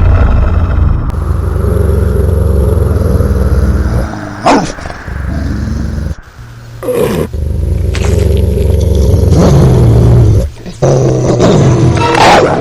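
Layered animatic sound effects: a loud low rumble, cut through by sharp sweeping sounds every two to three seconds.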